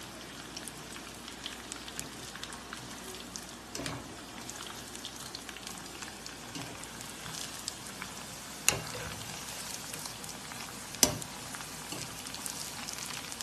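Readymade cheese balls deep-frying in a kadai of hot oil: a steady crackling sizzle full of small pops. Two sharp knocks stand out in the second half, a couple of seconds apart.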